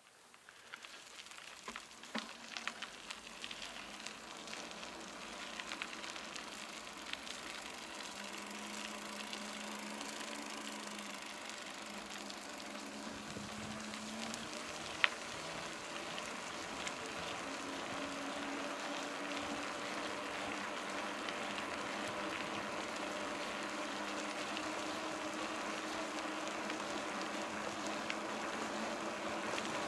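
Bicycle tyres rolling on wet asphalt, a steady hiss that grows louder over the first several seconds, with scattered clicks from the bike and one sharp click about halfway through.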